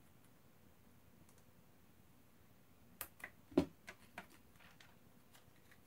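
A cluster of small sharp clicks and one duller knock, starting about three seconds in, from ribbon cables being pressed into the connectors on an Xbox One disc drive's circuit board.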